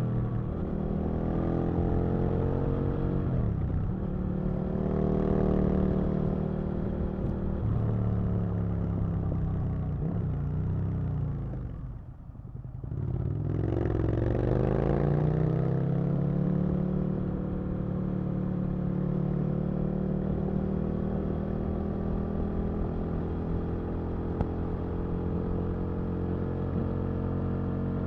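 Aprilia RSV Mille's V-twin engine under a rider's throttle: its pitch climbs and falls several times as it pulls and is backed off, drops away briefly about twelve seconds in, climbs again, then holds a steady pitch at a constant speed for the rest of the time.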